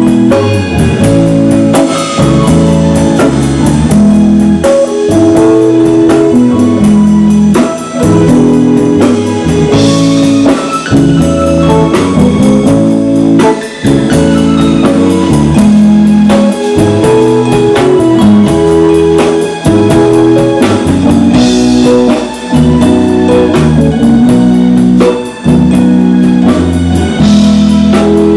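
A band playing a loud instrumental blues passage: guitar over a drum kit keeping a steady beat.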